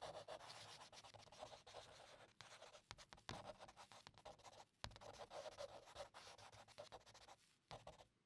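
Faint scratching of a drawing tool across paper in repeated strokes, broken by a few short pauses and sharp ticks.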